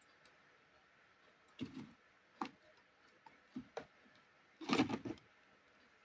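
A few short knocks and clicks of hard parts being handled, with a louder clattering knock about five seconds in.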